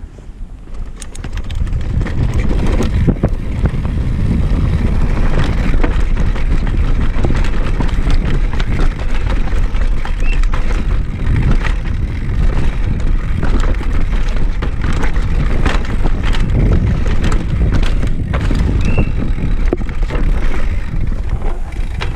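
NS Fuzz downhill mountain bike running fast down a dirt trail: wind buffets the microphone with a steady rumble, over tyre noise and constant rattling and clicking of the chain and frame over bumps. It builds over the first two seconds as the bike picks up speed.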